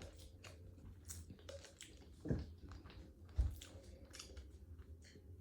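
Person chewing food close to the microphone: soft wet mouth clicks throughout, with two louder low thumps about two and a half and three and a half seconds in.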